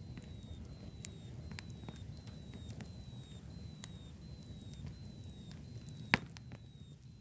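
Fireworks going off: scattered sharp pops and cracks, with one loud bang about six seconds in, over a steady low rumble. A short falling chirp repeats about every 0.7 s throughout.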